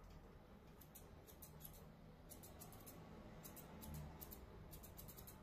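Grooming scissors snipping through a Labrador's coat: faint, crisp cuts in quick little runs, about one run a second.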